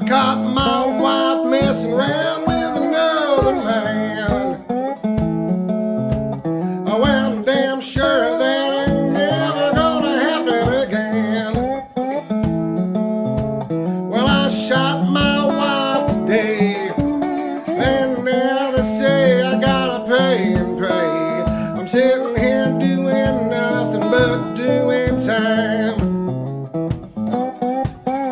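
Acoustic guitar music: a steady strummed rhythm with a wavering lead line over it.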